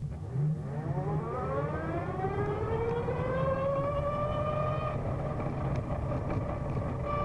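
Vectrix VX-1 electric maxi-scooter pulling away from a standstill: the straight-cut reduction gear whines, rising steadily in pitch for about five seconds as it accelerates, then holding a steady pitch, over a low steady rumble.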